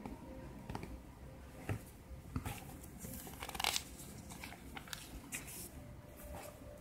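Glossy paper pages of a printed catalogue rustling and flipping as they are turned by hand, in several short rustles and light clicks, the loudest a little past halfway.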